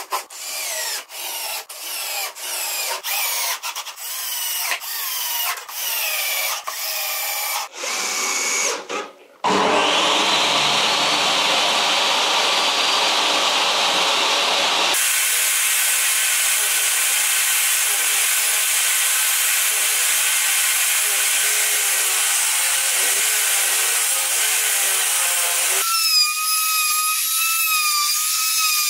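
Cordless drill driving screws into pine boards in about a dozen short bursts, each with a rising and falling whine. Then a table saw motor starts up and runs, followed by steady power-tool cutting noise, and near the end a trim router runs with a steady high whine.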